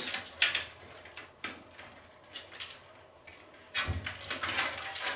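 Sleeved PC cables rustling and plastic connectors clicking as a hand routes them through an open PC tower case: a few scattered clicks, then a longer rustle near the end.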